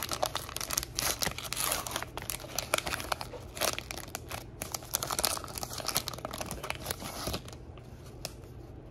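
Trading card pack wrapper being torn open and crinkled: a dense run of crackles and rips that dies down after about seven seconds.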